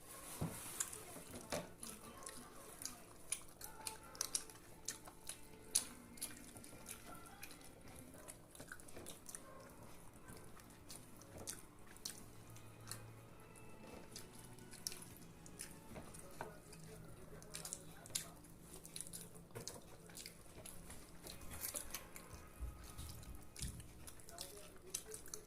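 Faint eating sounds: many small scattered clicks and wet smacks of chewing and of fingers working at food.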